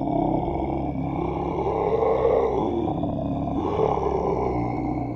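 Monster growl sound effect: one long, deep growl held throughout, swelling a little around the middle.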